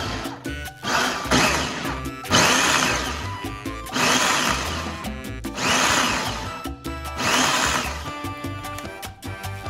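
Food processor run in short pulses, about seven bursts, chopping raw squid into a paste.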